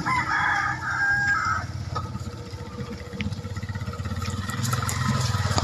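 A vehicle engine running at low speed with a low, pulsing rumble that grows louder toward the end. A few brief high tones sound in the first second and a half.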